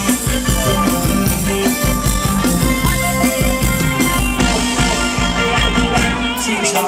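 Live band playing upbeat Thai ramwong dance music: drum kit keeping a steady beat under electric guitar and keyboard, with no singing.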